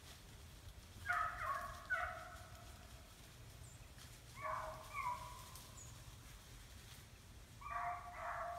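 Hunting dogs barking on a running chase: three bursts of several barks each, about three seconds apart.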